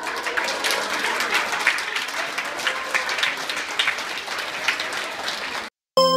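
A roomful of people clapping their hands, a dense continuous patter of claps that cuts off suddenly near the end. A synthesizer tune starts right after.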